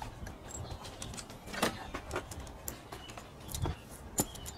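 Loose saw chain clicking and rattling against the guide bar of a Husqvarna 365 chainsaw, handled by hand during a chain change with the engine off: scattered sharp metallic clicks, two louder ones about a second and a half in and near the end.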